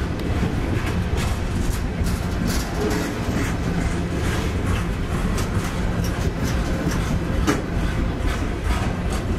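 A freight train's open-top cars rolling past at close range: a steady low rumble of steel wheels on rail with irregular clacks and knocks as the wheels pass over the track.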